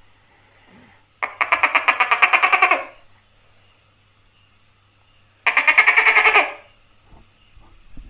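Tokay gecko calling: two rattling bursts of rapid pulses, about ten a second. The first starts about a second in and lasts about a second and a half; the second, shorter one comes after about five and a half seconds.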